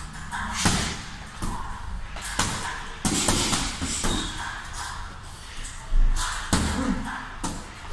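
Punches landing on a heavy punching bag: dull thuds about once a second, a pause in the middle, then a few more hits near the end.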